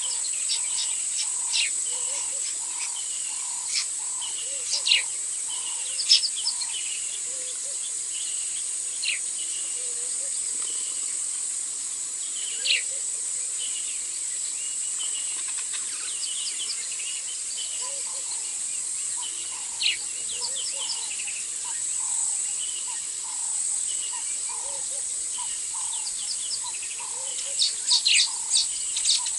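Bush ambience: a steady high-pitched insect drone, with birds calling in short sharp chirps throughout and a quick run of loud repeated calls, about three a second, starting near the end.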